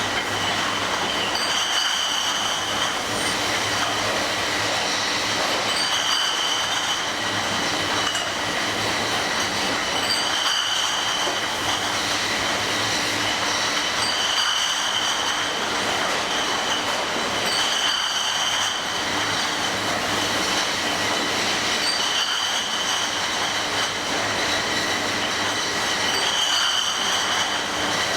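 Athena 28/28.3 continuous bottle washing machine running: a steady mechanical clatter with high squealing tones that swell and fade in a cycle about every four seconds.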